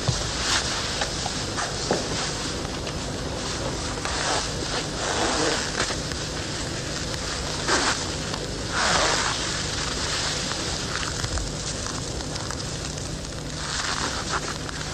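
Steady hiss and crackle of a worn old recording, with a low hum and occasional soft rustles of clothing being handled.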